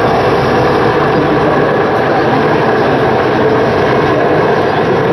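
EH-101 Merlin helicopter hovering low, its main rotor and three turbine engines making a loud, steady roar.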